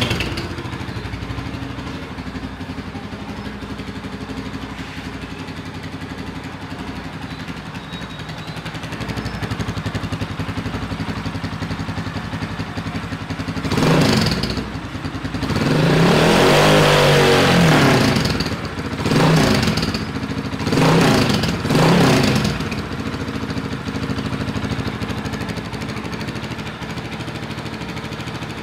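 Rusi Classic 250 motorcycle engine idling through an aftermarket exhaust fitted with a new silencer (dB killer), blipped four times about halfway through, the longest rev rising and falling over about two seconds, then settling back to idle.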